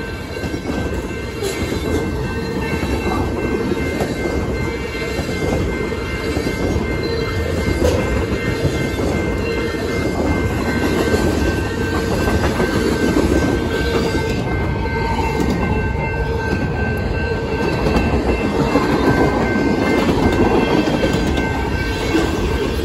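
Freight train of tank cars and boxcars rolling past at a grade crossing: a steady rumble and clatter of the wheels on the rails, with thin steady high-pitched tones above it.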